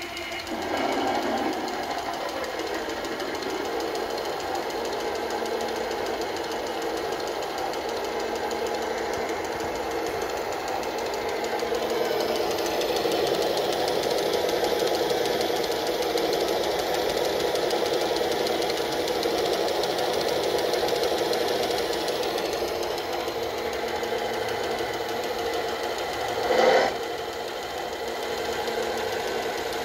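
Electronic truck-engine sound from an RC model's UMS-RC2 sound module, played through a small built-in speaker: a steady idle with a thin, bass-less tone. A short louder burst comes near the end.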